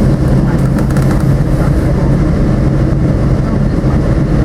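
Metra Electric electric multiple-unit train running, heard from aboard: a steady loud rumble with a low electric hum.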